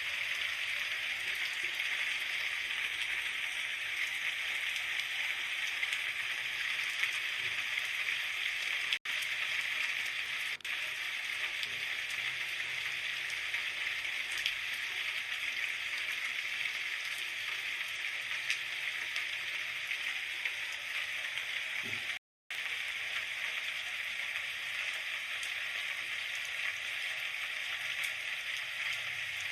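Steady rain, an even hiss with fine pattering crackle. It cuts out for an instant twice, about a third and three-quarters of the way through.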